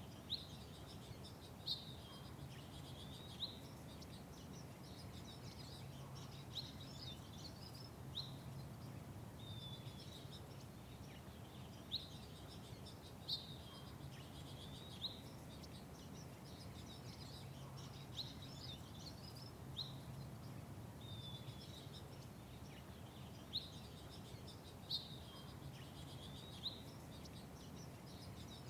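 Small songbirds chirping: short, sharp upswept chirps repeated every second or two, over a steady low background hum.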